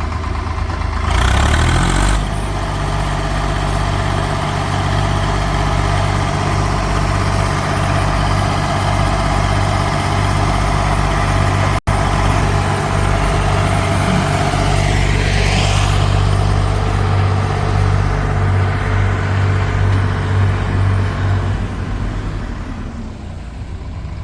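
Diesel engine of a JCB 3DX backhoe loader running steadily while working, with a deep, even hum. A short loud burst of noise comes about a second in, and the engine sound drops off near the end.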